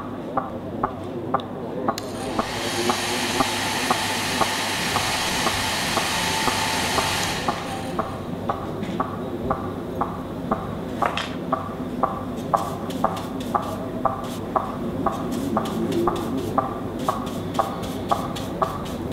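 Steady, even ticking at about two ticks a second. A hiss joins it for about five seconds starting two seconds in.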